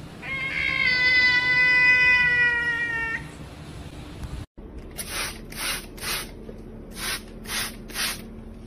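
A grey cat gives one long meow of about three seconds, holding its pitch and dropping slightly at the end. About halfway through, a hand trigger spray bottle starts squirting in a series of short hisses, roughly two a second.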